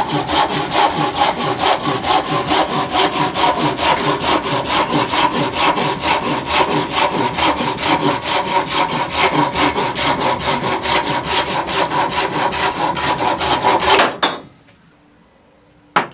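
Silky Sugoi pull saw cutting through sugar maple firewood in fast, even strokes, about four to five a second, that stop about 14 seconds in. A single sharp knock follows near the end.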